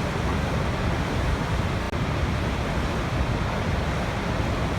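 Waterfall rushing: a steady, continuous roar of falling water, heaviest in the low end, with a brief dip about two seconds in.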